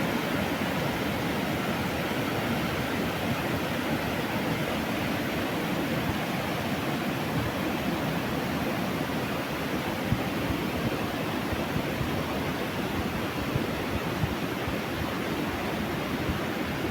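Floodwater rushing steadily, a dense even noise with a few small knocks.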